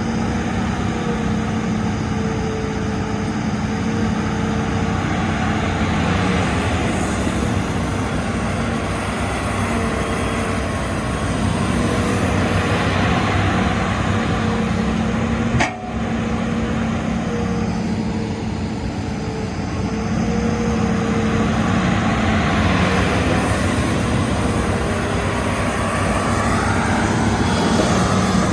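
Hitachi Zaxis excavator's diesel engine running steadily at high throttle, a quite buzzing drone. One sharp click about halfway through.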